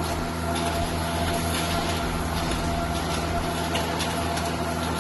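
Integrated steel-wire drawing, ribbing, straightening and cut-to-length machine running steadily: an even mechanical hum with several constant tones over a rushing noise, and faint ticks scattered through it.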